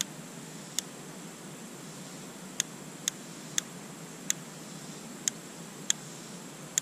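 Rear sight elevation knob of a Fulton Armory M14 rifle being turned up one detent at a time: about nine sharp clicks at uneven intervals as the sight is raised from bottomed out toward 12 clicks up for zeroing.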